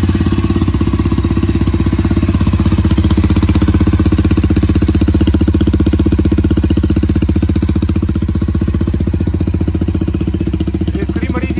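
Jawa 42 Bobber's single-cylinder engine idling steadily and loudly through an open exhaust with the dB killer (baffle) removed, an even, unchanging beat with no revving.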